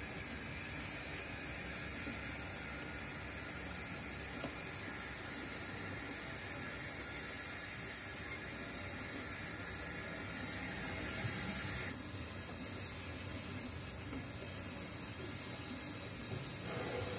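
7mm-scale model goods wagons rolling along the track: a steady, even hiss with rumble. The high hiss drops abruptly about twelve seconds in.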